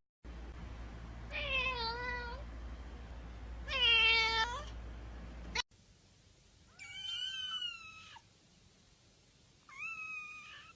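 Domestic cat meowing: four drawn-out meows, about a second each, in two pairs. The first pair sits over a steady low hum and the second pair is higher-pitched.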